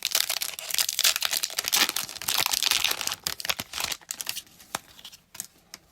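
Foil Pokémon booster pack wrapper being crinkled and torn open: a dense crackling rip for about three seconds, then sparser rustles and clicks as it is pulled apart.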